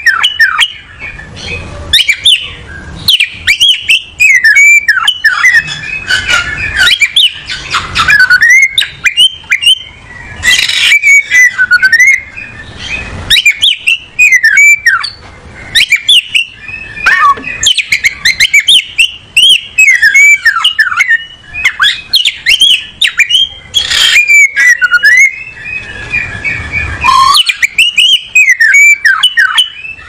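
Oriental magpie-robin singing a loud, varied song of quick whistled notes that glide up and down, delivered in rapid runs with brief breaks.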